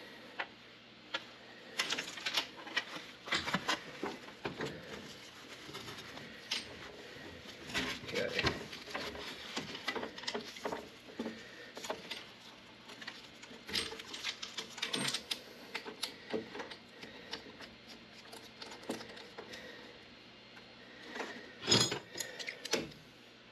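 Hands working a sheet-metal coil-cabinet panel and copper refrigerant lines: irregular light taps, clicks and rattles, with a louder metallic clatter near the end.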